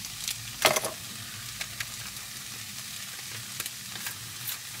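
Chicken pieces sizzling in a non-stick frying pan on a portable gas stove, a steady hiss. Over it come several sharp clicks and knocks, the loudest a clatter under a second in.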